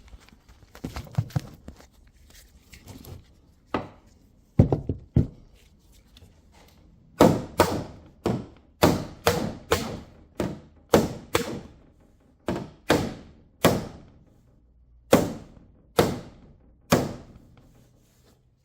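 Hammer blows on the steel door skin of a van's rear door, flattening a folded-back edge. A few scattered, lighter knocks come first. About seven seconds in, a run of heavy, sharp blows starts at about two a second and grows sparser near the end.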